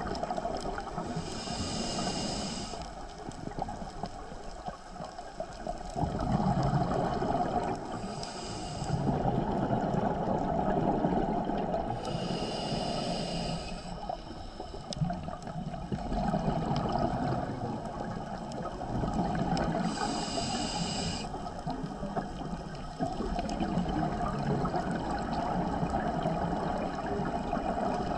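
Scuba diver breathing through a regulator underwater. A hissing inhale comes four times, and after each one the exhaled bubbles rush and gurgle for several seconds.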